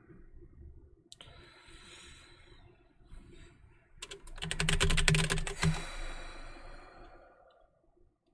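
Typing on a computer keyboard: a quick run of keystrokes about four seconds in, the loudest part, entering a command in a terminal.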